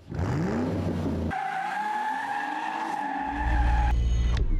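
Car sounds in short edited cuts: an engine revving up, then a steady high-pitched squeal over the engine, then a low engine rumble that cuts off with a sharp crack.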